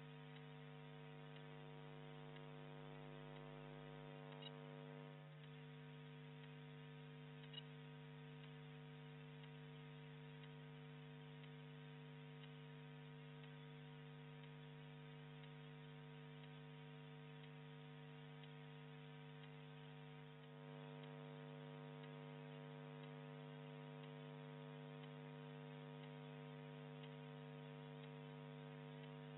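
Steady electrical mains hum with a stack of overtones on the audio feed, close to silence. Two faint clicks come about four and a half and seven and a half seconds in.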